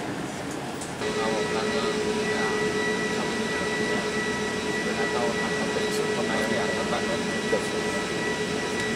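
Cabin noise of an Airbus A380 taxiing, heard beside the window over the wing: a steady rush and hum of the jet engines, with a steady high whine joining in about a second in.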